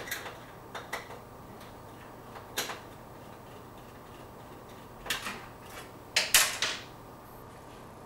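Scattered sharp clicks and clatters of hands working at the back of an LG plasma TV, taking out its power supply board; a louder run of clatters comes about six seconds in.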